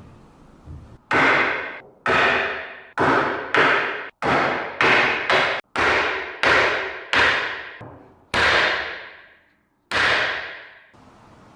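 Hammer striking metal, about a dozen blows, each ringing out briefly before the next.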